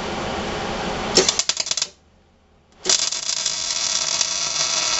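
Arc welder laying tack welds on a steel hitch mount: two bursts of hissing, crackling arc. The first breaks into sharp pops and stops a little under two seconds in; the second starts about a second later and runs steadily until it cuts off near the end.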